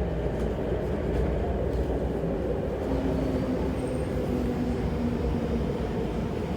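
Interior running noise of an MTR Tuen Ma Line CRRC Changchun electric multiple-unit train travelling between stations: a steady low rumble, with a faint low tone coming in about three seconds in.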